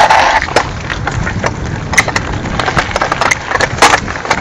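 Mountain bike clattering and rattling down a rocky trail: many irregular sharp knocks and clicks as it jolts over stones and gravel, over a steady low rumble.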